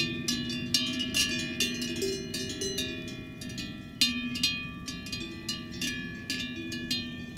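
Large cowbells on grazing cows clanking at an uneven pace, bells of several different pitches ringing on after each stroke.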